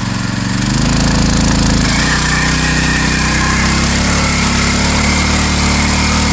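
Mini bike's 212cc Harbor Freight single-cylinder four-stroke engine running loud at high revs; the revs rise briefly about a second in, then settle back near two seconds and hold steady.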